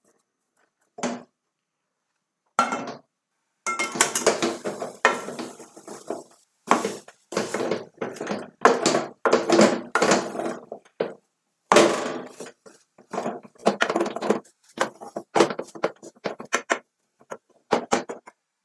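Wooden spoon scraping and knocking against an aluminium saucepan in quick irregular strokes, stirring and pressing thick blended cabbage fufu as it cooks. The strokes are sparse at first and come almost without pause from a few seconds in.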